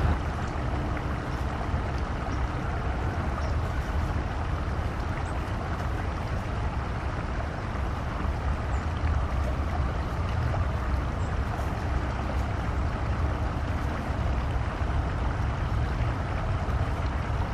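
Steady low rumble of background noise with a hiss above it, unchanging and without any clear bird calls.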